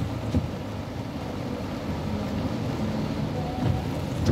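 Steady low hum of a car's engine and road noise heard inside the cabin, with rain on the windshield and the wipers sweeping. A few soft knocks come about a third of a second in and again near the end.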